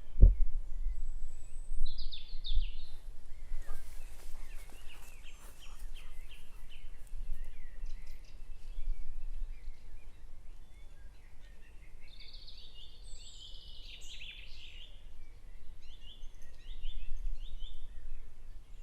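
Several birds chirping and singing in short, repeated calls, over a steady low rumble.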